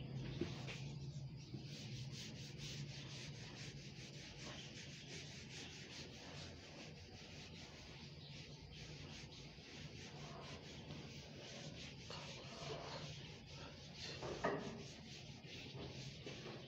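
Whiteboard eraser rubbing across a whiteboard, wiping off marker writing in repeated short strokes, with one louder scrape near the end.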